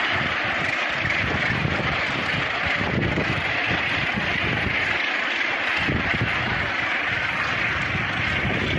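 Massed calling of a large northern gannet colony, a steady dense chatter, with wind gusting on the microphone.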